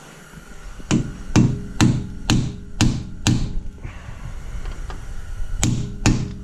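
Hammer striking a steel punch to stake the torqued axle (spindle) nut on a Fiat 500 drive shaft, locking the nut in place. Six ringing metal strikes about two a second, a pause, then two more.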